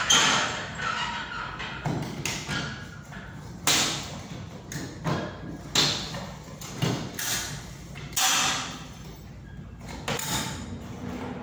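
Demolition of a gypsum board ceiling: irregular thuds and knocks, one every second or two, as boards and metal ceiling framing are worked loose and pulled down.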